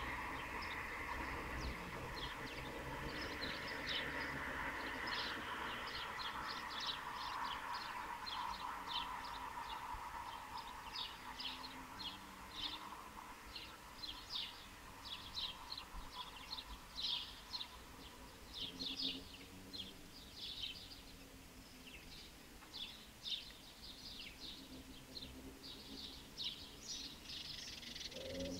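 Small birds chirping in quick repeated short notes, with a pigeon cooing faintly a few times in the second half. A rushing noise of distant traffic fades away over the first ten seconds or so.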